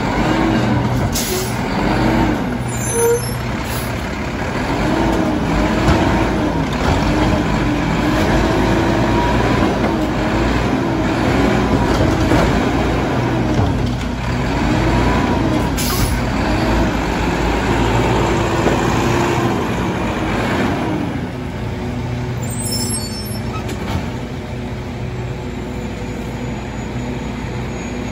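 Mack LEU garbage truck engine revving hard up and down, over and over, as it drives the McNeilus side loader's hydraulics, with two short air hisses about a second in and about sixteen seconds in. After about twenty-one seconds the revving stops and the engine settles to a steady idle.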